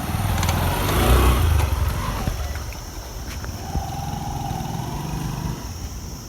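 Bajaj Discover 100 motorcycle's single-cylinder engine running, getting louder in the first second or two and then settling back to a lower, steady run.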